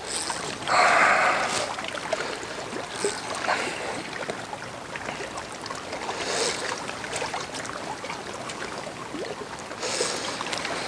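Choppy, wind-driven reservoir water lapping and slapping against a stone bank, with louder splashes every few seconds.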